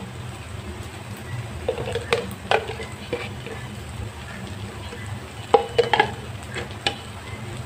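A metal spatula scraping and tapping in a metal pan as vermicelli pulao is stirred, mixing a final spoon of ghee through the cooked dish. The strokes come in short scattered bunches, over a low steady hum.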